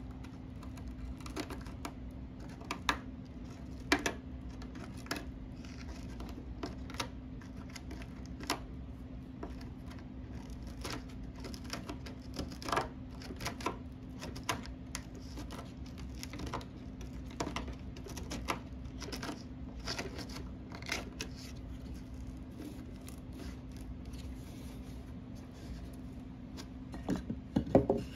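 Irregular scraping and clicking of a small hand tool picking crumbling, water-swollen particle board out from under the veneer of a cedar chest's base, over a steady low hum. Near the end, a quick run of louder knocks as a pine board is set against the edge.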